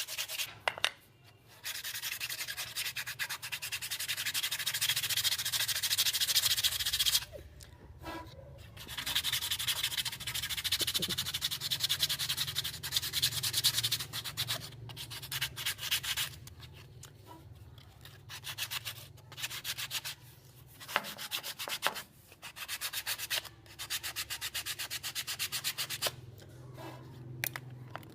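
Sandpaper rubbed over the sawn end of a bamboo flute tube in quick back-and-forth strokes, in spells of several seconds with short pauses between. It is grinding away the rough ridge left by the saw so the end comes out smooth.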